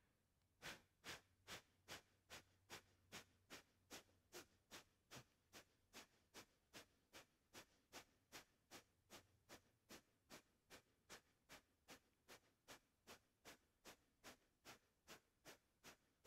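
Yogic breath of fire, a pumping breath: a steady run of fast, sharp exhales forced out through the nose, about two and a half a second, faint.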